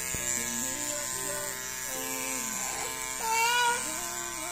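Electric hair clippers buzzing steadily as they shave a baby's head, over background music with a wandering melody. About three seconds in, a short, loud, high wavering voice stands out above the rest.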